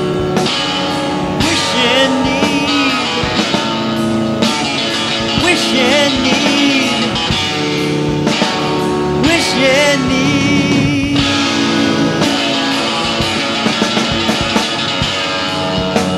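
Rock music with guitar and a wavering sung or lead melody.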